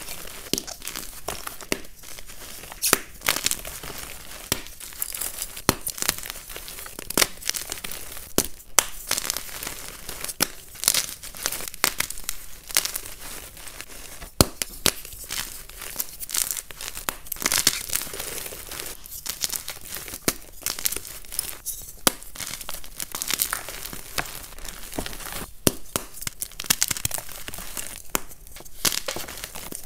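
Soft blocks of gym chalk crushed and crumbled in bare hands: a continuous crackly crunching with many sharp snaps as the chalk breaks apart into powder.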